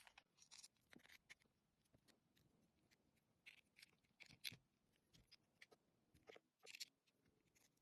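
Faint, scattered small clicks and short scrapes of fingerboard parts being handled while trucks are fitted to the deck.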